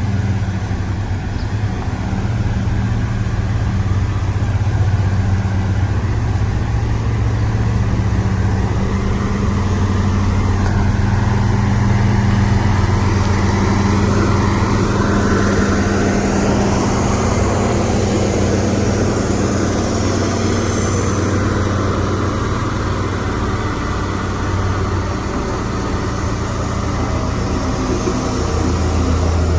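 HD850 motor grader's diesel engine running steadily under load while grading a stone mix, with a noisy scraping rush over the engine hum; the engine note rises and falls a little about halfway through.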